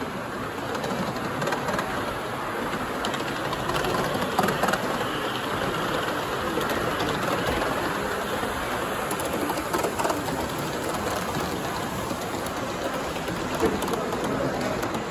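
Live-steam gauge 1 model steam locomotive running past, its exhaust steam hissing steadily.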